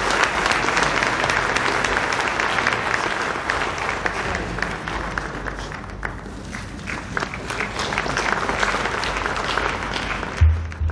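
A hall audience clapping steadily, thinning out in the second half, with a short low thump near the end.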